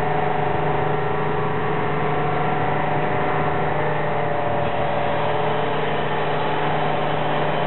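Seybold Saber IV paper cutter, switched on, running with a steady electric machine hum made of several held tones. The upper tones shift slightly about four seconds in.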